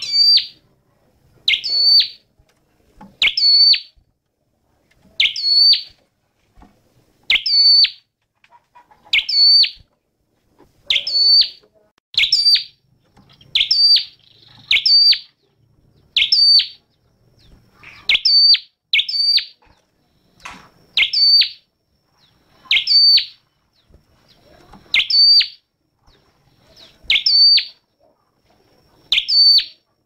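Common tailorbird calling: a high, sharp phrase of two or three quick notes, repeated regularly about every one and a half seconds.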